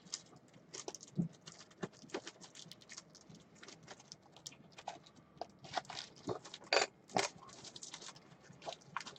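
Trading cards and plastic top loaders being handled and slid together, giving light, irregular clicks and taps, with a few sharper ones about a second in and again around six to seven seconds in.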